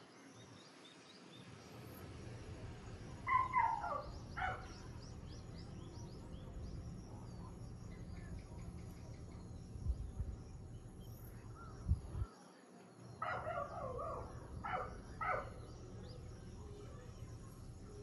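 A dog barking in two short bouts, a few barks each, about three seconds in and again near the end. Faint small-bird chirps run throughout, over a low rumble of wind.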